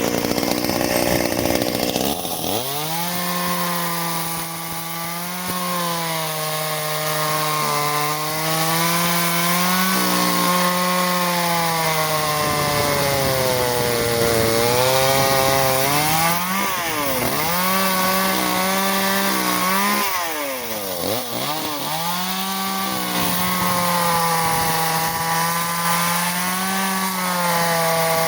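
Echo CS-370 two-stroke chainsaw running at high revs and cutting wood. Its engine note sags and picks back up several times as the cut loads it, with a few sharp drops and recoveries in pitch.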